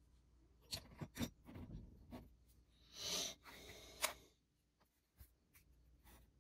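Small plastic parts and hand tools being handled on a workbench: a few light clicks and taps, a short scraping rustle about three seconds in, and one more sharp tap just after.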